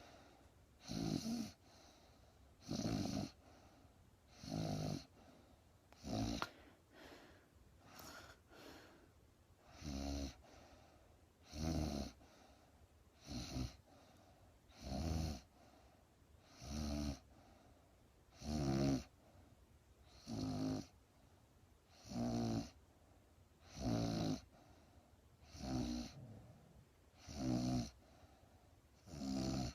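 A woman snoring in a steady rhythm, about one rough snore every two seconds. About six seconds in, the rhythm gives way for a few seconds to softer, uneven sounds, then the regular snores resume.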